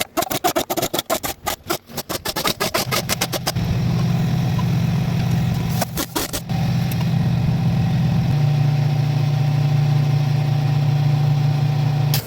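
Kubota V2203 four-cylinder diesel cranking on the starter, catching after about three and a half seconds and running. It stumbles briefly around six seconds in, then settles into a steadier run.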